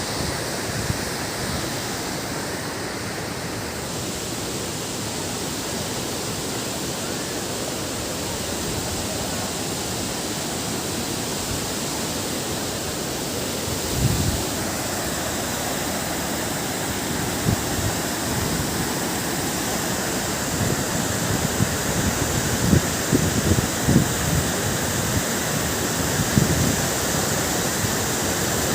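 Steady rush of a waterfall, an even roar of falling water. A few short low thumps come over it about halfway through and again near the end.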